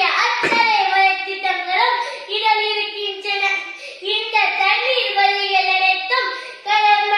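A boy's high-pitched voice delivering a loud, dramatic, sing-song recitation in Tamil, with long held syllables. There is a single thump about half a second in.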